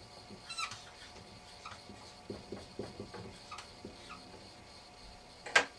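Dry-erase marker writing on a whiteboard: a string of short, faint squeaky strokes, then a sharp click shortly before the end.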